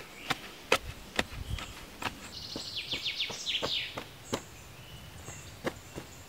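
Repeated sharp knocks of a wooden pole tamping earth around an upright log post, coming every half second or so at first and more sparsely after. A rapid high chirping trill runs through the middle.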